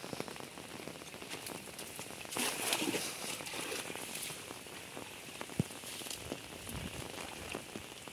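Rain pattering steadily on a muddy pond and the plants along its bank. About two and a half seconds in, a louder splashing hiss lasting under a second as a thrown cast net lands on the water.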